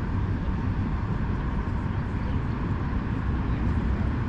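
Steady, even outdoor rumble, heaviest in the low end, with no distinct events.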